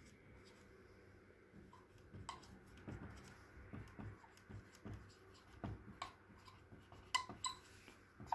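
Dry-erase marker writing on a whiteboard: faint, irregular taps and short scrapes of the felt tip on the board.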